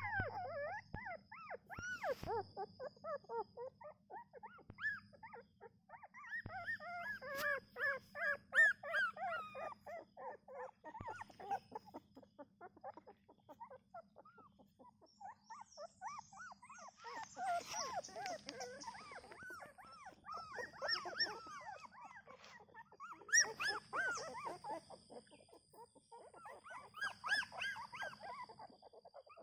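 A litter of young puppies whimpering and squealing: many short, high-pitched cries overlapping in bursts, with a lull about halfway through.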